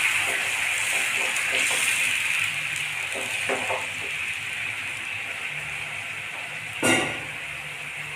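Onion-tomato masala with chilli powder and turmeric sizzling in a frying pan after hot water has been poured in, a steady hiss that slowly dies down, with light stirring scrapes early on. A single sharp knock about seven seconds in.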